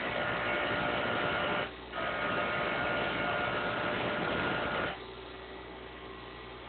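Grinder grinding steel lock pick blanks in two passes, the first about two seconds long and the second about three, after a brief lift-off. The grinder's motor keeps up a steady hum between and after the passes.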